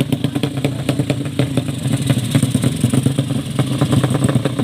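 Drag-race motorcycle engine running at a steady idle, with a rapid, uneven clatter.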